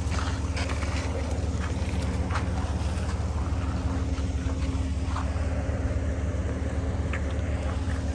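Pickup truck engine idling steadily, a low even rumble with a few faint clicks over it.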